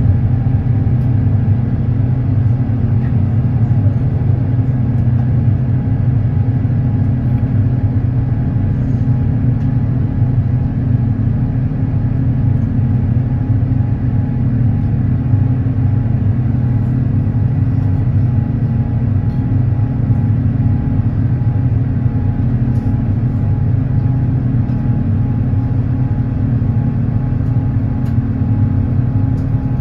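Steady low rumble of an Airbus A350-900's Rolls-Royce Trent XWB engines heard from inside the passenger cabin, with a constant low hum and no change in pitch or loudness.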